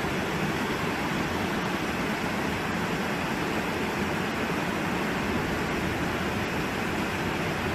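Fast-flowing floodwater and heavy rain: a steady, even rushing noise.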